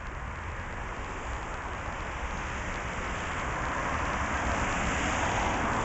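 Outdoor background noise: a steady low rumble under a hiss that grows louder through the second half and peaks near the end.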